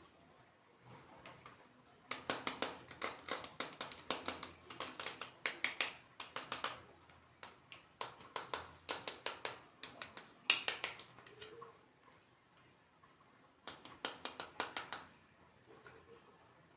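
Hands handling plastic toy packaging, a fast run of sharp crinkling clicks that comes in three bursts with short pauses between.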